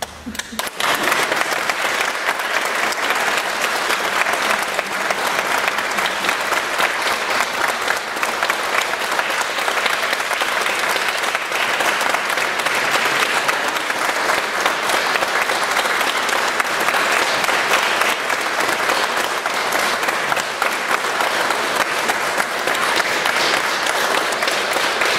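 Audience applauding: dense, steady clapping that starts about a second in and keeps going.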